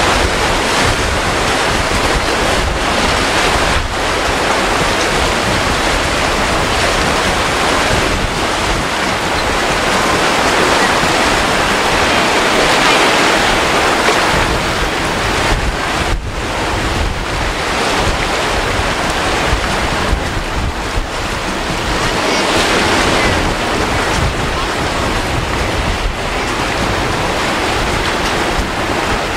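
Surf washing in and wind buffeting the microphone, a loud steady rush of noise that swells louder about halfway through and again later.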